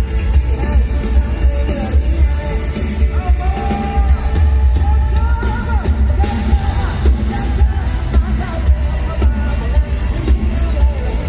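Live pop-rock band playing loud, with heavy booming bass, a steady drum beat and a voice singing the melody, heard from within the audience.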